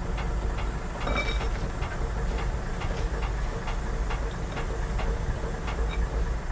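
Steady hiss of compressed air leaking from a loaded semi-trailer's front left air suspension bag, which is cracked all over, over a steady low rumble.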